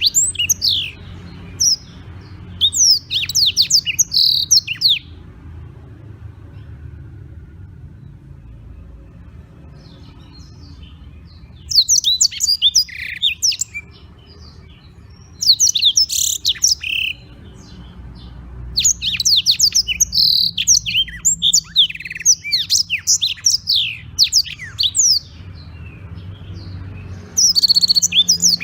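Black-throated canary (blackthroat) singing in bursts of rapid, high, twittering phrases, each burst lasting one to four seconds, separated by pauses of several seconds.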